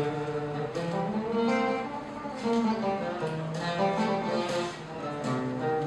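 A plucked string instrument playing a short melodic instrumental passage, one note after another, between sung verses.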